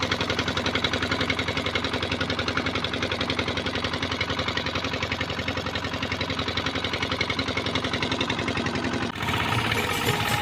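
Engine of a small fishing boat running steadily, with an even pulse of about seven beats a second. About nine seconds in it cuts off and background music begins.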